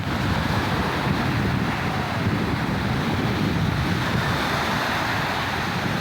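Sea waves washing steadily on the shore, with wind rumbling on the microphone.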